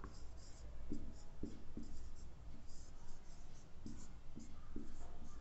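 Marker pen writing on a whiteboard: a run of short squeaky strokes and light taps as a word is written, in two clusters, about a second in and again near the end.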